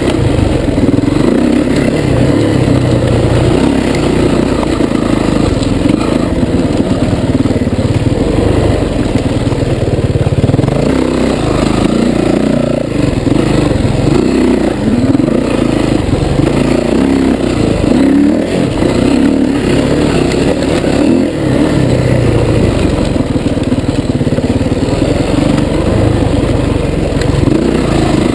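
Off-road dirt bike engine under throttle, its pitch rising and falling continuously as the rider accelerates and backs off, heard close up from a handlebar-mounted camera.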